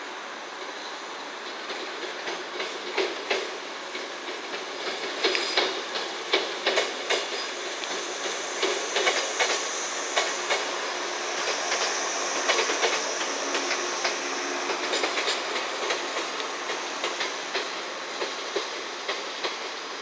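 443 series electric inspection test train rolling slowly over points and rail joints, its wheels clattering in irregular clacks. A high wheel squeal rises over it around the middle as the wheels grind through the pointwork.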